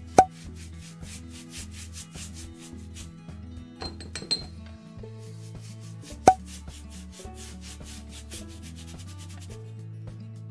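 A sponge rubbing wood preservative onto rough eucalyptus slab wood, heard under background music with a steady beat and bass line. Two sharp knocks are the loudest sounds, one just after the start and one about six seconds in, with a short clatter around four seconds.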